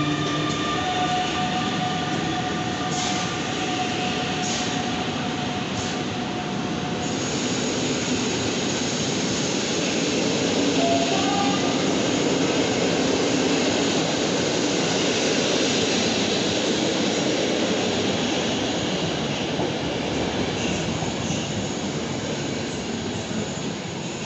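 PKP Intercity EU160 Griffin electric locomotive hauling a passenger train past. Its traction equipment gives a steady whine for the first several seconds as the locomotive goes by, with a few clicks of wheels over rail joints. The coaches then rumble past, fading near the end.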